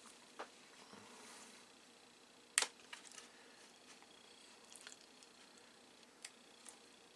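Faint handling of a paper manual: a soft page rustle and scattered light clicks and taps, the sharpest tap a little over two and a half seconds in.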